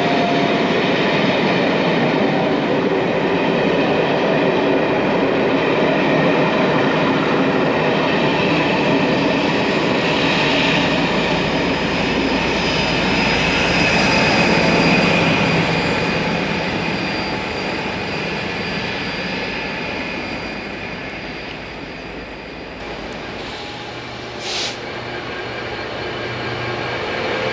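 A train passing close by, its wheels and running gear loud and steady, with a high wheel squeal from about ten seconds in. The train then fades away over the last few seconds.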